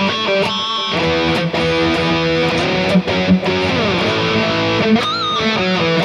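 Electric guitar played through the Mooer Prime S1's Marshall JCM 900 amp model: a lead line of held notes, with a note bent down about four seconds in and a note shaken with vibrato near the end.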